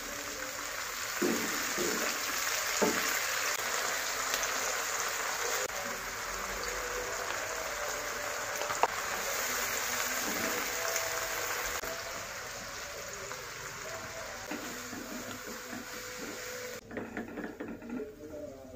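Stir-fry sizzling and bubbling in a hot non-stick wok as liquid is poured onto the vegetables, a steady hiss with the occasional scrape of a spatula. The hiss drops away sharply near the end, leaving a few light clatters as noodles are tossed.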